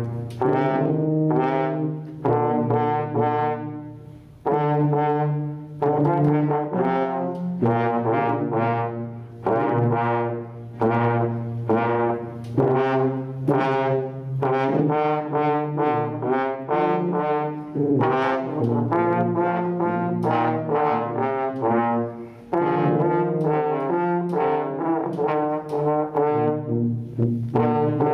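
A brass trio of trombone, baritone horn and tuba playing a fanfare in harmony, the low part holding notes under the moving upper lines. It pauses briefly between phrases about four seconds in and again late on.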